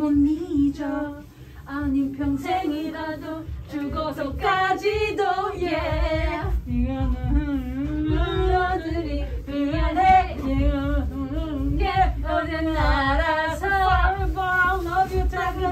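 Women's voices singing a pop tune loudly in a small karaoke room, the melody running on with little or no backing, over a low rumble.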